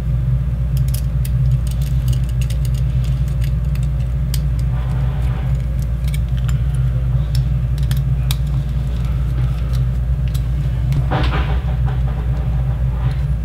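Small metal clicks and ticks of a screwdriver driving small bolts into the threaded holes of a metal servo block, with handling of the parts, over a steady low hum.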